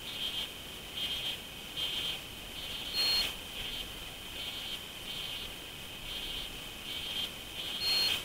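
Crickets chirping in short repeated bursts over a steady high trill, about one or two chirps a second, with three louder, harsher bursts roughly every four to five seconds.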